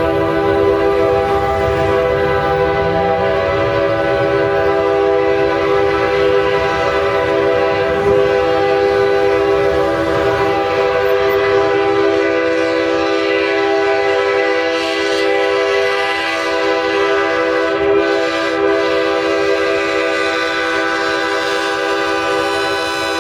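Nathan K5H five-chime locomotive air horn held in one long, steady chord, with a low rumble underneath that is stronger in the first half.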